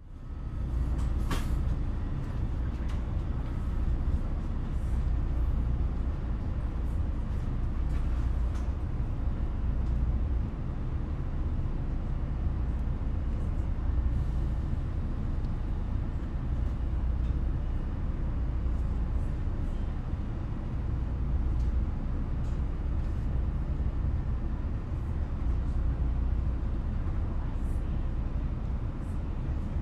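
Train standing at a station waiting for passengers: a steady low rumble from the stationary train, with faint scattered clicks and knocks.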